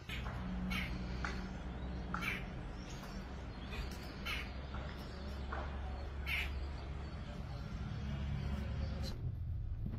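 Crows cawing, a short call every second or two, over a steady low rumble.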